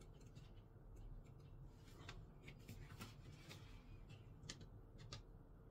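Near silence, with faint scattered clicks and rustles of handling: paper manual pages and small parts being handled over a plastic tool case.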